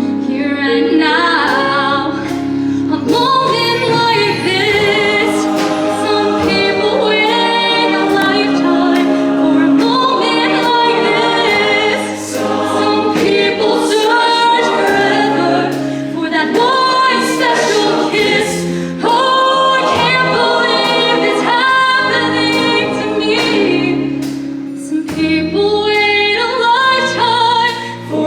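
High school show choir singing a pop number live in full, close harmony over a steady low bass line, with sharp percussive hits throughout.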